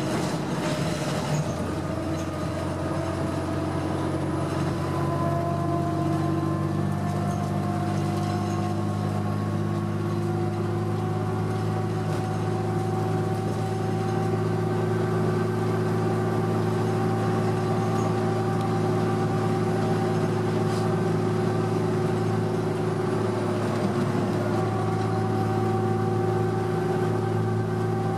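Interior drone of a 2006 Orion VII diesel bus with a Cummins ISL engine and Allison automatic transmission, cruising on the highway with road noise. The engine note climbs slowly as the bus gathers speed, with a brief dip near the end.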